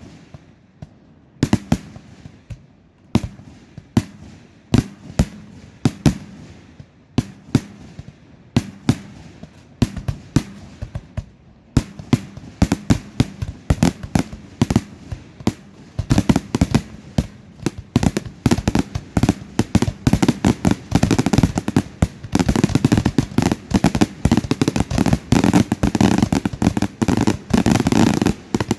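Aerial fireworks display: shells bursting with sharp bangs, a few a second at first. About halfway through they come faster and denser, and near the end they merge into an almost continuous barrage of bangs and crackle.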